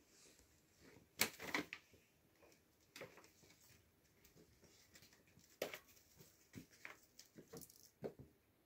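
A few short, soft rustles against a quiet room, the loudest cluster a little over a second in, as kittens shift and paw on the cat bed's cushion fabric.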